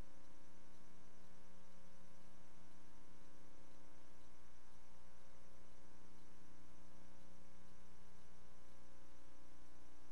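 Steady electrical hum with a stack of overtones over faint hiss, unchanging, with no other sound: the noise floor of a silent film transfer.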